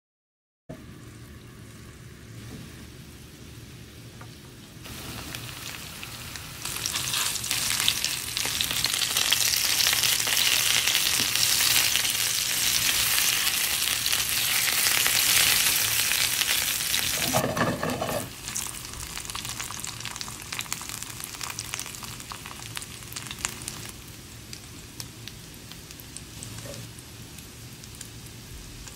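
Meatballs shallow-frying in sunflower oil, sizzling. The sizzle swells after a few seconds, stays loud through the middle, then drops back about 18 seconds in to a lighter sizzle with scattered crackles.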